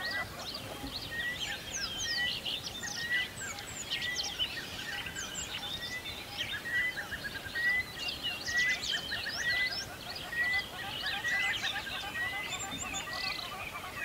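Several songbirds singing at once, overlapping chirps and trills, with one short note repeated steadily about every three-quarters of a second.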